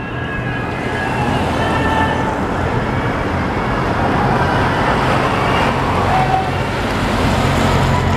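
Motor vehicle engines running close by with road noise: a steady low hum that grows louder near the end, with a few short higher-pitched sounds over it.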